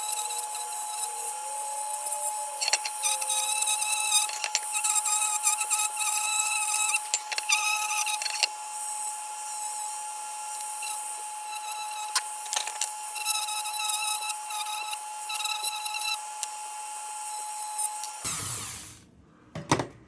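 Small electric power tool running with a steady high whine, its overtones coming and going as it works, with scattered sharp clicks; it stops about 18 seconds in.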